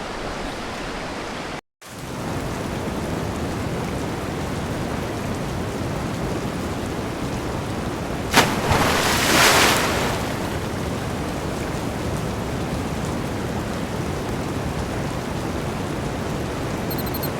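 Steady rush of a rainforest river's water, with a sharp knock about eight seconds in followed by a louder rush for a second or so. The sound cuts out for a moment near the start.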